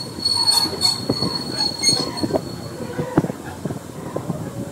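Railway coach running along the track, heard from on board: irregular clanks and knocks from the wheels and running gear. A thin, high wheel squeal stops a little past halfway.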